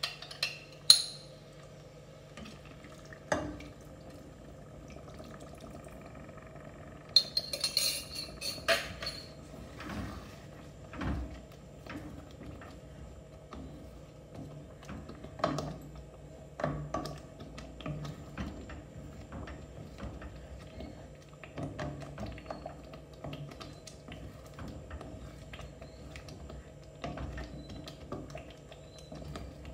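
Wooden spoon stirring thick curry sauce in a stainless steel pan, with scattered knocks and scrapes against the metal and occasional clinks.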